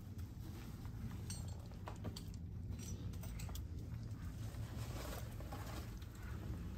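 A rappeller's boots stepping and scuffing on a rock slab, with scattered light clicks and clinks of metal climbing gear, over a steady low rumble on the microphone.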